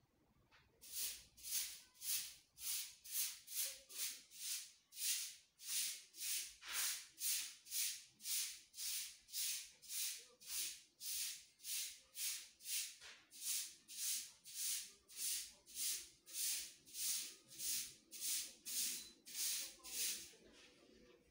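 An evenly repeating swishing hiss, about two swishes a second, shaker-like.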